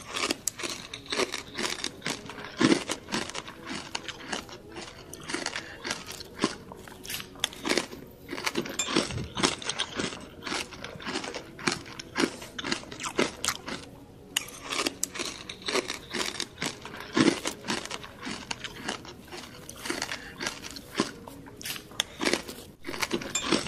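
Close-up crunching and chewing of crispy pata, a deep-fried pork leg, with many sharp irregular crunches as the crisp skin is bitten and chewed.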